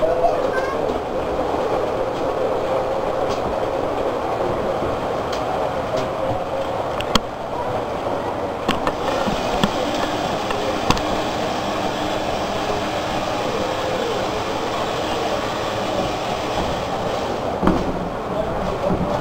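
Model diesel locomotives running on a model railroad layout: a steady running sound broken by a few sharp clicks.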